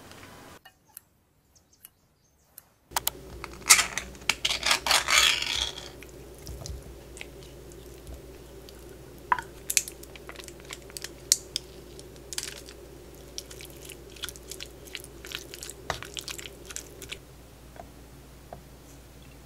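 A wooden spatula stirring canned tuna with mayonnaise in a wooden bowl: wet squishing and scraping with sharp clicks, busiest a few seconds in and thinning to scattered clicks, after a short silence at the start.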